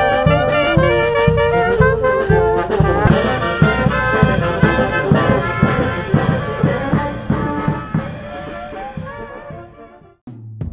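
A brass band with saxophones and trumpets plays a lively tune over a steady bass beat, fading out about eight seconds in. A different piece of music cuts in just at the end.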